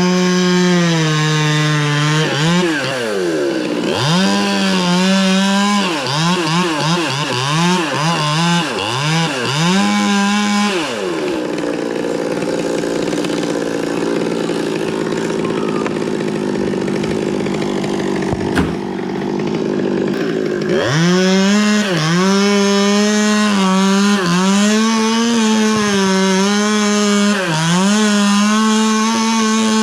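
Two-stroke chainsaw revving up and down in repeated surges, then held at steady throttle in a cut through melaleuca wood for about ten seconds, then revving in surges again.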